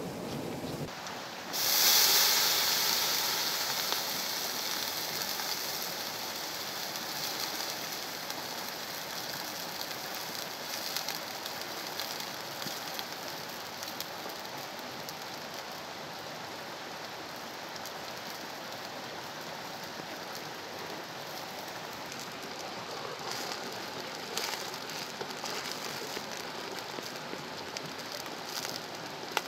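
Water poured in a steady stream from a kettle into a large aluminium cooking pot, splashing into the food. It starts suddenly about two seconds in, loudest at first, then settles into a steady hiss.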